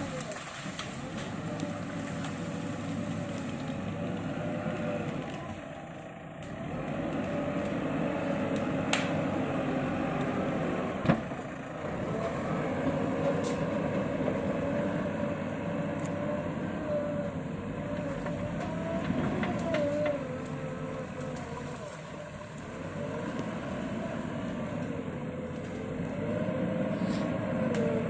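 Excavator's diesel engine running, its note dipping and rising every few seconds as the machine works. A single sharp knock comes about eleven seconds in.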